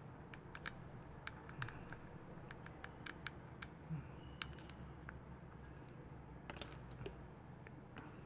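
Faint, irregular small clicks and light taps of small parts being handled, with a couple of soft bumps, over a low steady room hum.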